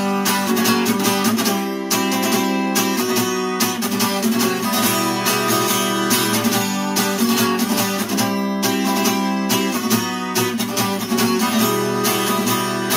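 Instrumental passage of a song: acoustic guitar strumming chords in a steady rhythm.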